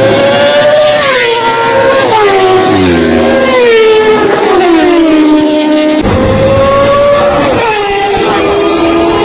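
Superbikes passing at high speed, their high-revving engines dropping sharply in pitch as each goes by. A second pass begins about six seconds in, with its note falling again near the end.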